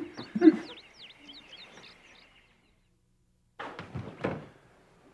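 A woman's short, muffled vocal sound, then faint bird chirps for a couple of seconds. After a moment of near silence come a few soft knocks.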